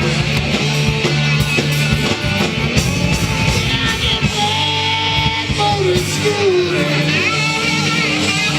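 Rock band playing: electric guitar, bass and drums with singing, a held melody line bending up and down over a steady beat.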